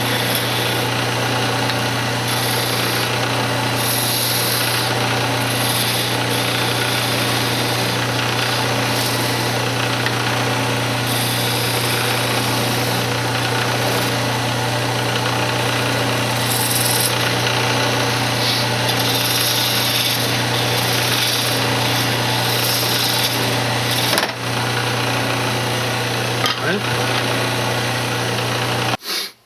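Wood lathe running with a steady motor hum while a turning tool cuts a spinning cocobolo blank, the cuts coming as irregular swells of hissing scraping. The sound stops abruptly near the end.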